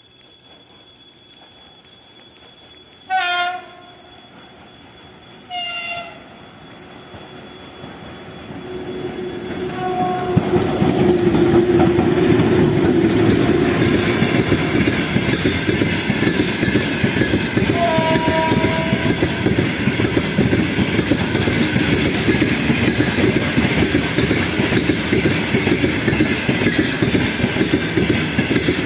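VL15 twin-section electric locomotive sounding two short horn blasts, then the steady rumble and wheel clatter of its extra-long freight train of open wagons swelling in and passing close by. Two more short horn notes sound as it goes past.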